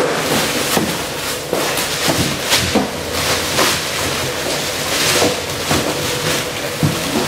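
Plastic packaging crinkling and cardboard rustling as a welding machine is lifted out of its shipping box, in a dense run of irregular crackles.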